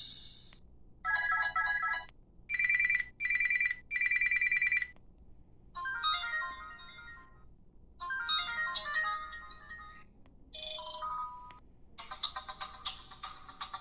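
Preloaded ringtones of a Samsung SCH-r270 cell phone played one after another: about six short electronic tunes, one of them a ring of three pulsed beeps. Each is cut off after one or two seconds with a brief gap before the next.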